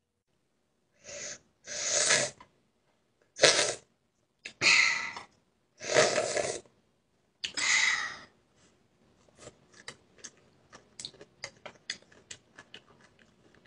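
A child eating noodles: about six short, loud breathy bursts over the first eight seconds, then a run of quick, quieter mouth clicks of chewing.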